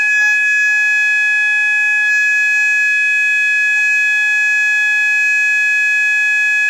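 System Sensor MASS multi-alert sounder-strobe fire alarm sounding: a loud, steady, high-pitched electronic tone held unbroken, with no pulsing pattern.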